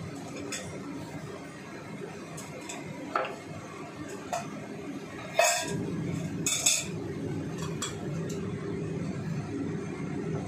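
Kitchen utensils and cookware clinking and knocking, a handful of short sharp strikes scattered through, the loudest about five and a half seconds in and a quick cluster just after, over a steady low background hum.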